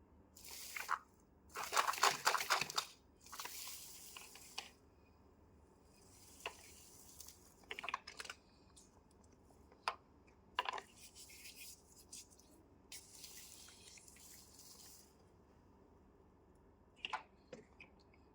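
Irregular rustling and crinkling in short bursts, with a scattered series of sharp clicks and taps. The loudest burst comes about two seconds in.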